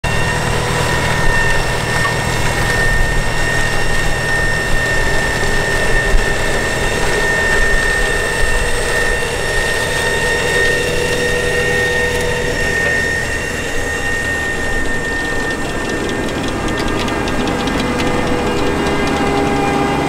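Potato harvesting machinery and tractor engines running steadily, a low engine rumble with a held high whine over it.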